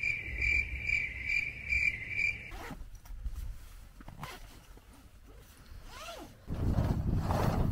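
Cricket chirping in an even run, about two and a half chirps a second, stopping after about two and a half seconds. Then fabric rustling and handling as a fabric carry bag is opened, loudest near the end.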